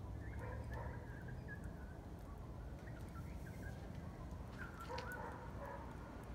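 Small fire in a kettle grill with a few sharp pops, over a low steady outdoor rumble. Faint animal calls come in twice, near the start and again about five seconds in.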